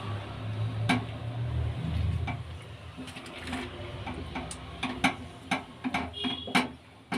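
A spoon scraping and knocking against a pan while stirring a thick, sticky tomato halwa that is setting, heard as irregular clicks and taps that come more often towards the end. A low rumble runs through the first two or three seconds.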